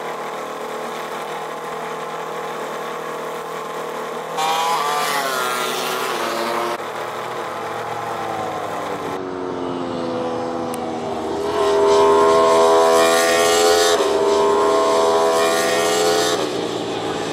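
Racing motorcycle engines at speed, in several spliced recordings that cut abruptly from one to the next. The engine note holds steady at first, then its pitch falls and rises again, loudest about twelve seconds in.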